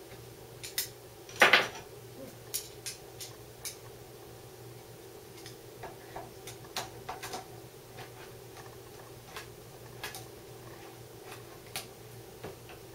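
Small metal clicks and clinks as steel M8 bolts and a hex key are handled and fitted into a metal bearing mount, with one louder clatter about a second and a half in.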